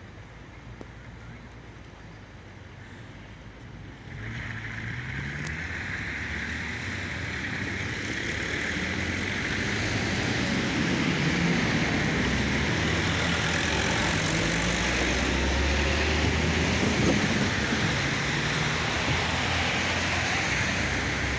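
LVS-86K articulated tram approaching and pulling into a stop: its running gear and motors on the rails grow louder from about four seconds in, with a low motor hum that shifts in pitch as it slows and stands close by.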